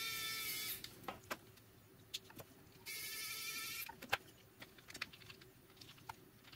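Small electric screwdriver whirring in two short runs of about a second each, one at the start and one about three seconds in, driving small case screws. Light clicks and taps of handling come between the runs.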